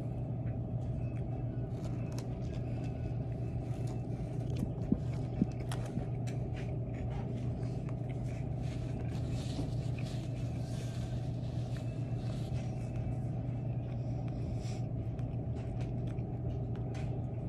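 Steady low hum of the room, with a couple of faint clicks about five seconds in.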